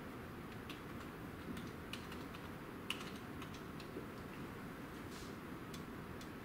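Computer keyboard keys clicking in an irregular run as a search term is typed, the sharpest keystroke about three seconds in, over a steady low room noise.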